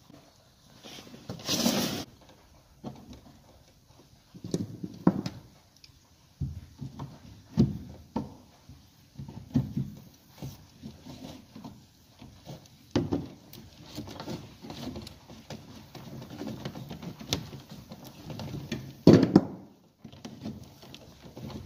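Irregular knocks, scrapes and rubbing as electrical cable is worked through a hole in a wooden stud with hands and pliers. There are two louder thumps, about two seconds in and near the end.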